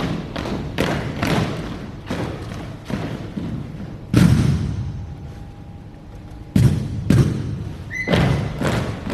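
Armed drill-team rifle drill: a rapid run of sharp slaps and knocks as drill rifles are handled and struck, several a second. About four seconds in comes a heavy thump that dies away, then a short lull, then more loud knocks.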